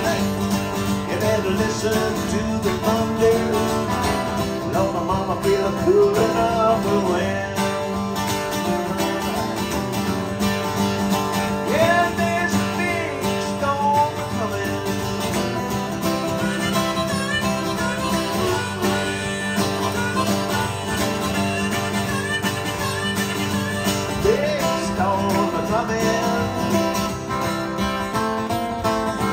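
Instrumental break in a live country song: an acoustic guitar strummed steadily while a neck-rack harmonica plays a melody with bending notes.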